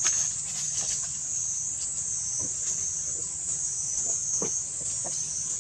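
Steady high-pitched drone of an insect chorus, with a few scattered short clicks and knocks.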